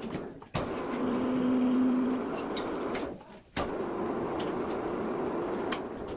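Manual metal lathe running, with a steady mechanical noise and occasional sharp clicks. A steady hum comes in about a second in and holds for about a second. The sound breaks off abruptly twice.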